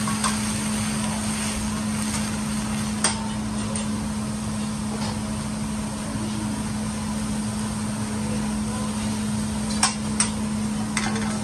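Food sizzling on a steel teppanyaki griddle, a steady hiss with a low steady hum under it. A metal spatula clicks sharply against the griddle now and then, with two clicks close together about ten seconds in.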